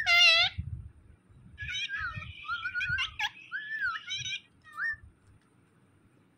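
Rose-ringed parakeet calling: one loud, high call right at the start, then about three seconds of squeaky chattering that slides up and down in pitch and stops about five seconds in.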